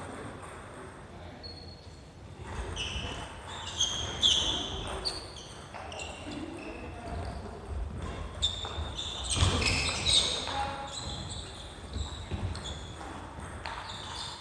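Badminton singles rally: sharp racket strikes on the shuttlecock, thudding footsteps, and brief high squeaks of court shoes on the wooden floor, busiest in two flurries.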